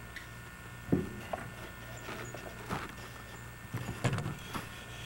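A few scattered soft knocks and bumps over a steady low hum: one about a second in and a short cluster near four seconds.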